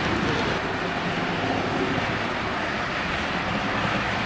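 Model train running on a layout's track: a steady rumble of wheels on rail and electric motor hum.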